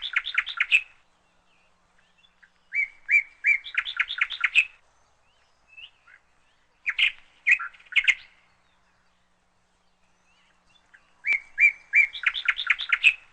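A songbird singing the same phrase over and over, every few seconds: a few short, even chirps on one pitch, then a quick trill of notes.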